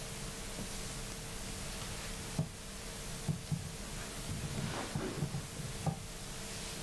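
Quiet room tone: a steady hiss with a faint constant hum, broken by a few soft knocks and handling noises, one at about two and a half seconds and a cluster a little past the middle.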